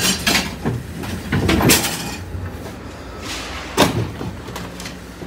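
Knocks and clattering of household junk being handled and set down on the floor of a box truck's cargo area, with a sharp bang nearly four seconds in.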